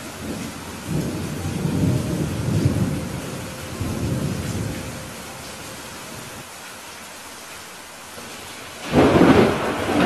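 Thunderstorm: steady rain with thunder rumbling from about a second in until about halfway through, then a sudden, louder clap of thunder near the end.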